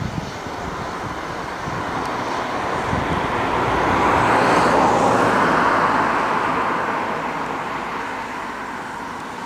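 Twin Rolls-Royce BR710 turbofans of a Bombardier Global Express business jet at taxi power as it rolls past: a steady jet rush that swells to its loudest about halfway through, then fades.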